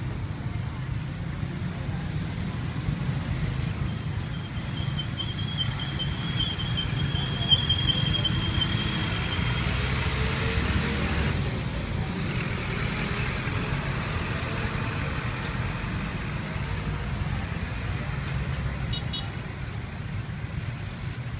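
Street traffic noise: a steady low rumble, with a thin high whine for several seconds in the first half.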